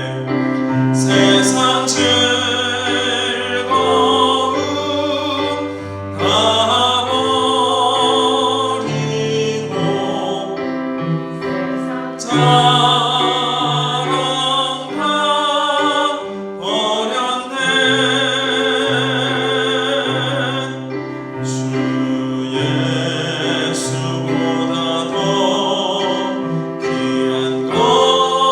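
A hymn sung with vibrato over sustained keyboard accompaniment, with short breaks between phrases.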